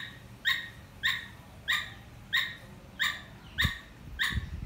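Caged Thai squirrel giving a repeated alarm call: a short, sharp 'tak' about every 0.6 seconds, eight times. The owner takes the calling as its warning that it smells a snake in the house. A few low thumps come near the end.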